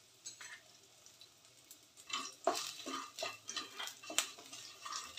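Wooden spatula stirring and scraping against an aluminium kadhai, a quick run of scrapes and taps starting about two seconds in.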